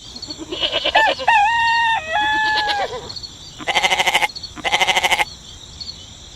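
A rooster crowing once, a few short notes and then long held ones, followed by two short buzzy calls about a second apart.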